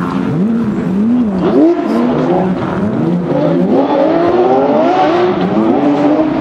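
Rally Porsche 911 GT3's flat-six engine at high revs, rising and falling quickly on the throttle and gearshifts, then climbing through a longer pull in rpm before dropping back near the end.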